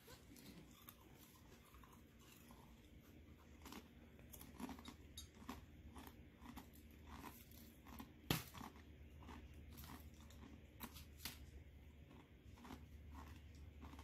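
A person chewing a crunchy chip with the mouth closed: faint, irregular crunches about once or twice a second, with one sharper crunch about eight seconds in.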